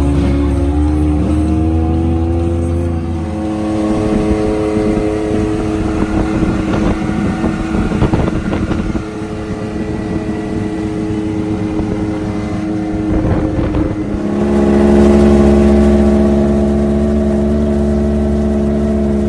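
Vehicle engine running steadily while driving, with knocks and rattles from the ride through the middle stretch; about fourteen seconds in it changes to a louder, deeper steady drone.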